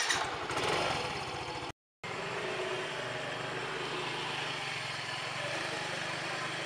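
Small motor scooter engine running steadily at low speed, with a short gap about two seconds in.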